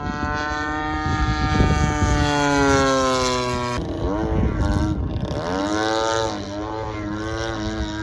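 GP-76cc two-stroke gasoline engine of a large RC aerobatic plane, turning a 24x9 propeller, running in flight overhead. Its pitch sinks slowly, jumps about four seconds in, rises and falls for a couple of seconds, then settles to a steady note. Wind noise on the microphone for the first few seconds.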